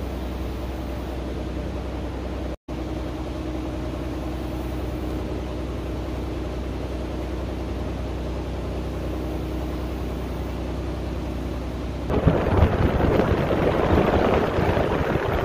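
A steady low machine hum, broken by a brief dropout about two and a half seconds in. About twelve seconds in it gives way to loud, gusty wind buffeting the microphone and the road noise of a moving vehicle.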